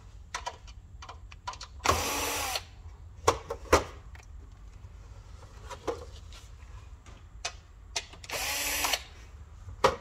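DeWalt 20V MAX cordless drill-driver spinning screws out of the NVR's sheet-metal lid in two short runs of under a second each, about two seconds in and again near the end, its pitch rising and falling as the motor speeds up and slows. Between the runs come a few light knocks and clicks of handling the metal case.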